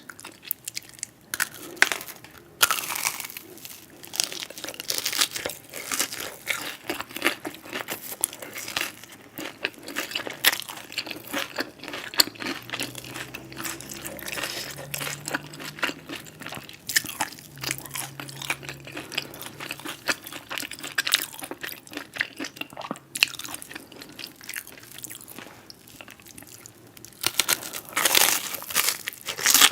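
Close-miked eating: crunchy food being bitten and chewed, a dense run of crackling crunches, growing louder near the end.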